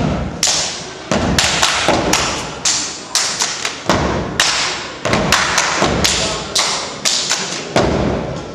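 A step team stomping and clapping in unison on a stage floor, with no music: sharp hits, two or three a second in a syncopated pattern.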